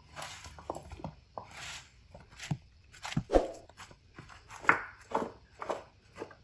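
Gloved hands tossing and scrunching flour-coated raw potato strips in a wooden bowl: irregular soft rustling swishes with a few sharper taps.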